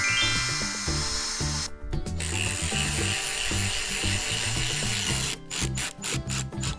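Power drill running while drilling holes, with a steady whine. It cuts out briefly about two seconds in and stops and starts several times near the end, over background music.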